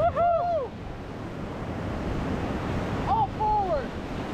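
Whitewater river rushing around the raft, with wind buffeting the microphone. Two short, high cries from the rafters, at the start and about three seconds in.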